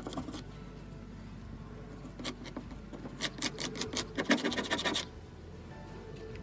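Plastic putty knife scraping quickly back and forth across a painted drawer front, working the chalk paint into a chippy texture. A few strokes come about two seconds in, then a rapid run of rasping strokes that is loudest around four seconds and stops about five seconds in.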